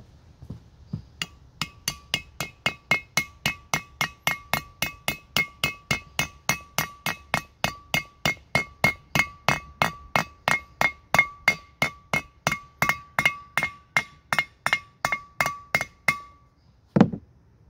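A hammer striking a metal part over and over, about three blows a second for some fifteen seconds, each blow ringing with a steady bell-like tone. The hammering stops and a single dull thud follows near the end.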